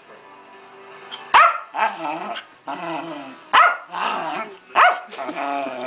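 A Keeshond in a fit, barking and growling: sharp barks about a second and a half in and twice more later on, with growls running between them.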